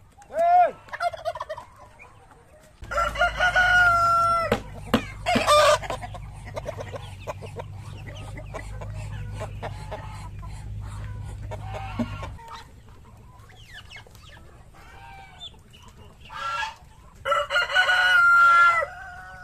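Roosters crowing, once about three seconds in and again near the end, over the steady clucking of a flock of chickens at feed. A low steady rumble runs under the first half.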